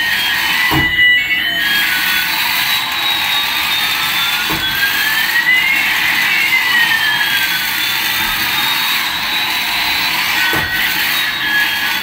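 Electronic sound effects from battery-powered light-up toys, a toy airliner and a toy car, running: a steady hissing noise with two tones sliding up and down that cross midway. There are a few faint knocks as the toys move about.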